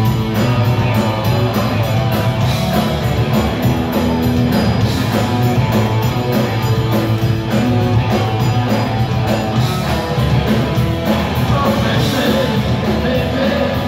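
Punk rock band playing live: drums, bass and guitars, with lead vocals into the microphone near the end, recorded from the audience.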